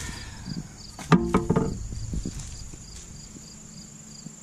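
Crickets chirping in a steady, rapid pulse. About a second in there is a brief pitched sound, and a few soft scrapes of a shovel digging into loose soil and grass thatch follow.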